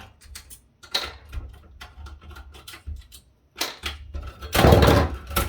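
Small metal clicks and taps as hex standoffs are unscrewed from the serial and VGA connectors of a steel-framed KVM unit, then a louder clattering scrape of metal parts a bit past four and a half seconds in.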